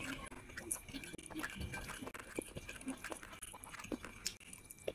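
Close-miked chewing of rice and fish curry eaten by hand, heard as irregular small clicks.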